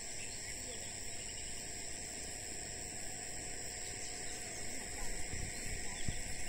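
Steady, high-pitched chorus of insects such as crickets, with a few low thumps about five seconds in.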